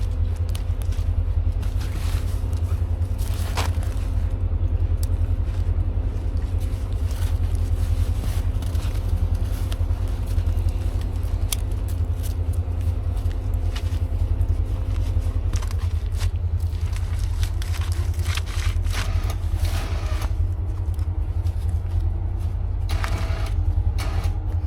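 Side-by-side UTV engine running, with a steady hum that stops about two-thirds of the way through, over a heavy low rumble and scattered scrapes and knocks.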